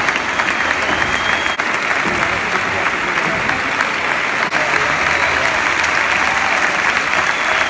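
A large concert-hall audience applauding steadily, with two brief dips in the loudness.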